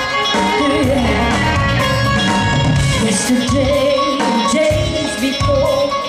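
Live rock band playing: a woman's lead vocal over electric guitar and a steady drum beat, amplified through the hall's sound system.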